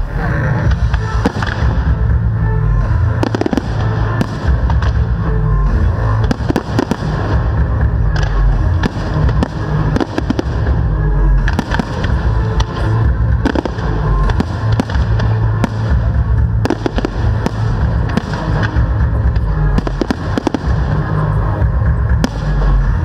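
Fireworks display: aerial shells bursting with many sharp bangs and crackles in quick succession throughout, with music playing along.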